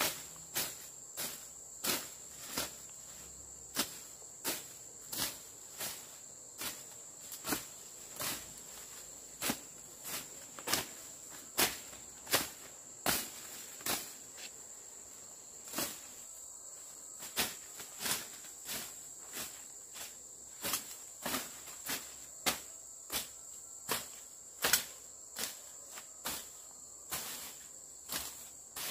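Steady high-pitched insect chirring, with a sharp knock or click coming about once or twice a second at an uneven pace.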